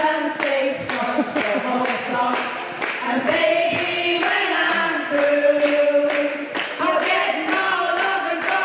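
A group of women singing together in harmony, holding long notes, over the steady strum of a ukulele-banjo.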